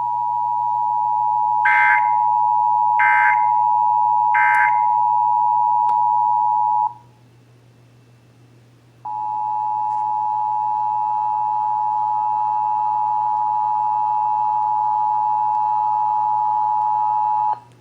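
Emergency Alert System attention signal: the steady two-tone alert beep sounding for about seven seconds, with three short chirps of the higher-pitched digital data tones over it. The beep breaks off, and after about two seconds of quiet it sounds again for about eight and a half seconds.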